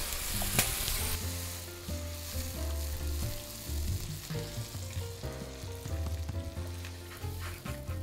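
Shallots, garlic and mushrooms sizzling in a hot frying pan as cooking wine deglazes it. The sizzle is loudest in the first second or so and then eases as chicken stock is poured in and stirred with chopsticks.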